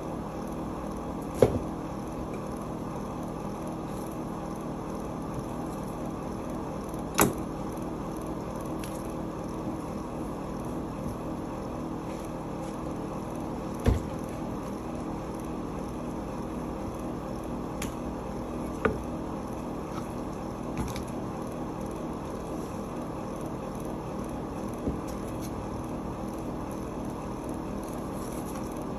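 Steady background hum with a few short knocks and thumps as salmon and a knife are handled on the counter; the deepest thump, about halfway through, is a whole salmon being set down.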